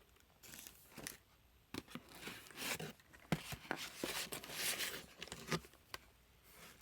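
Packaging being torn open and crinkled by hand, in a run of rustling tears with a few sharp clicks, quietening about five and a half seconds in.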